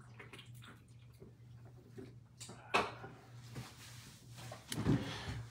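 A low steady hum with a few scattered short knocks and clicks, the sharpest about three seconds in and a louder cluster near the end.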